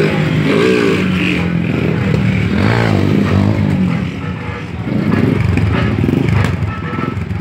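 Motorcycle engine revving, its pitch rising and falling several times as the rider works the throttle for a wheelie.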